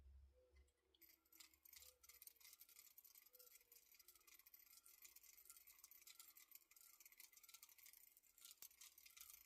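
Near silence: faint crackle and hiss.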